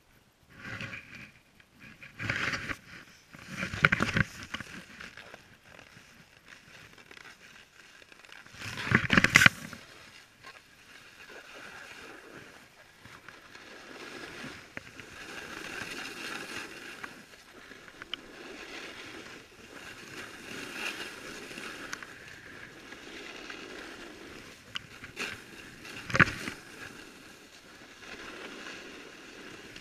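Snowboard sliding down a groomed slope: a steady scraping hiss of the board on the snow, with a few loud bumps in the first ten seconds, the loudest about nine seconds in, and one sharp knock late on.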